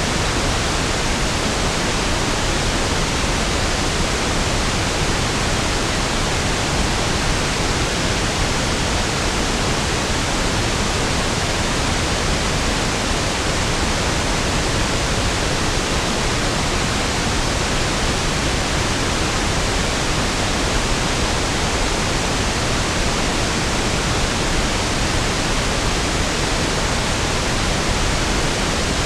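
Steady pink noise: an even, unchanging hiss, fuller in the low end than white noise, with no events or changes.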